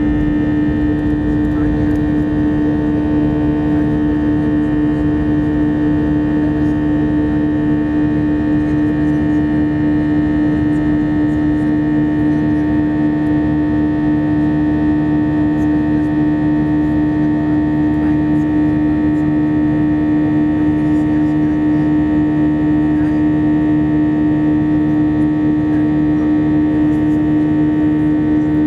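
Airbus A321 jet engines and airflow heard from inside the passenger cabin during the climb after takeoff: a steady drone with a strong low hum and a thinner whine above it.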